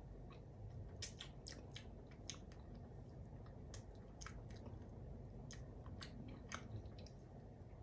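A person chewing pretzel close to the microphone: quiet, scattered crunches and mouth clicks over a faint low hum.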